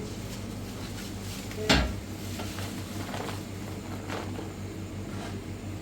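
One sharp knock, then a few lighter clicks and scrapes spread over the next few seconds, like objects being handled and set down, over a steady low hum.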